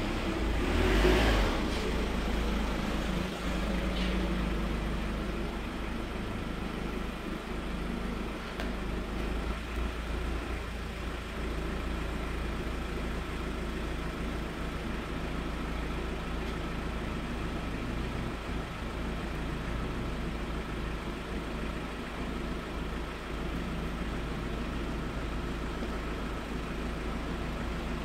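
Steady low rumble of motor vehicle engine noise, with a short louder burst of noise about a second in.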